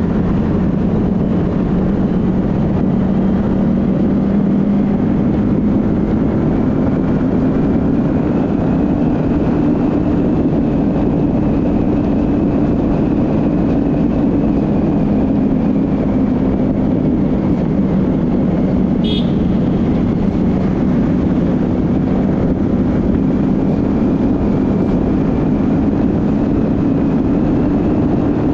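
Yamaha R15M's single-cylinder engine running at a steady cruise, heard with rushing wind noise, its pitch drifting slowly up and back down with road speed. There is a brief high-pitched beep about two-thirds of the way through.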